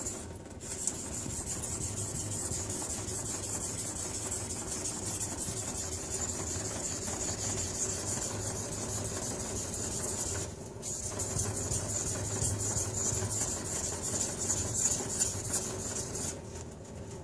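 Steel blade of a Takamura HSPS Pro honesuki stroked back and forth on a wet whetstone, a steady scraping rasp as its single bevel is sharpened. The scraping breaks off briefly about ten and a half seconds in and stops near the end.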